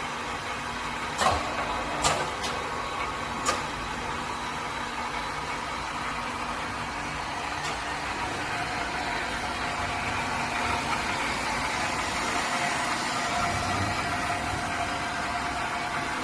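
Portable bevel milling machine running steadily, with a few sharp clicks or knocks in the first few seconds. About ten seconds in the sound grows slightly louder and a steady higher tone joins it.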